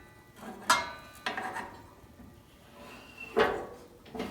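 Three sharp metal-on-metal clinks, each with a short ring: hand tools knocking against the table saw's metal parts during a blade-stop adjustment. Two come close together in the first second and a half, and a third follows about two seconds later.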